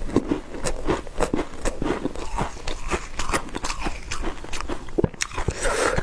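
Close-miked chewing of a mouthful of soft freezer-frost ice: rapid, irregular crisp crunches and crackles.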